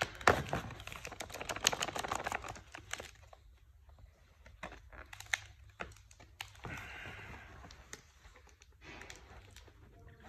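Clear plastic packaging crinkling and crackling as it is handled and pulled open, densest over the first three seconds, then scattered clicks and a brief rustle later on.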